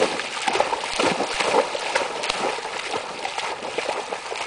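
A dog running through shallow water, its paws splashing in quick, irregular slaps.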